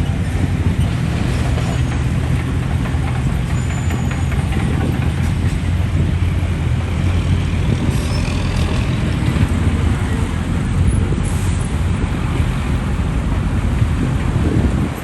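Diesel engine of heavy earth-moving machinery running steadily with a low drone.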